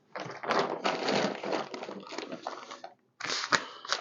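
Plastic packaging of a British Army ration pack crinkling as items are rummaged for and pulled out, in two stretches with a short break about three seconds in.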